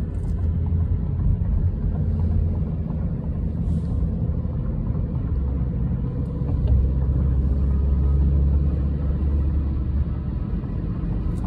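Steady low rumble of a car driving at highway speed, heard from inside the cabin: engine and tyre road noise, swelling louder for a couple of seconds past the middle.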